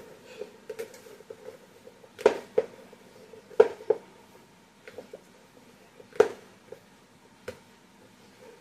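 Hands kneading stiff dumpling dough in a bowl: irregular dull thumps and slaps, the loudest in pairs about two and three and a half seconds in and another about six seconds in.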